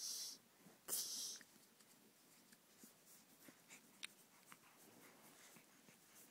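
Near silence, broken by two short breathy puffs in the first second and a half, then faint scattered mouth clicks from a baby working his tongue in and out.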